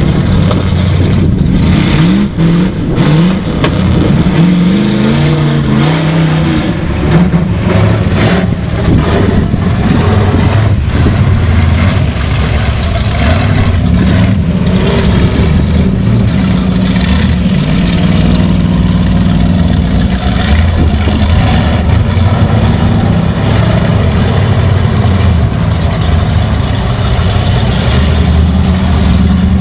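Off-road Jeep and truck engines revving in a mud pit, the pitch rising and falling sharply in the first several seconds, then running steadier at a high throttle.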